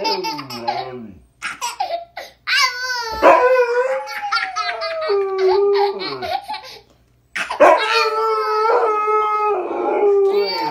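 A husky howling and 'talking' in long, wavering calls, with a toddler giggling and laughing in between and over them. The sound breaks off briefly about two-thirds of the way through, then both start up again.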